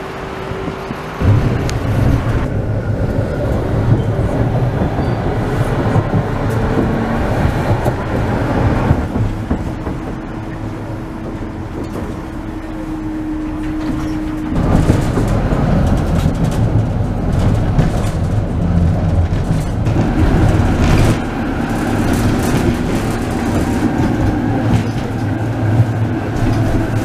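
Inside a Konstal 105N tram in motion: steady rumble and rattle of the car running over the rails, with a steady whine for several seconds in the middle that cuts off about halfway through.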